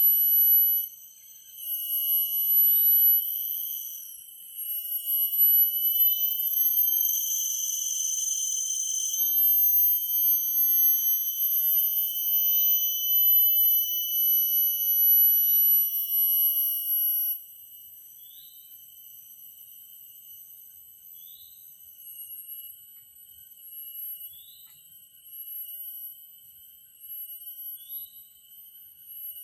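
Chorus of forest insects droning in steady, shrill tones, with a short rising chirp repeated every second or two. The loudest part of the chorus cuts off abruptly a little past halfway, leaving a fainter drone.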